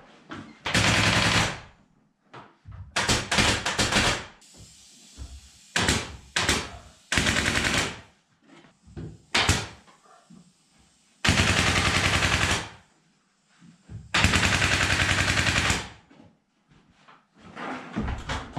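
Pneumatic staple gun firing in rapid runs, each lasting about a second, with single knocks and clatter in between.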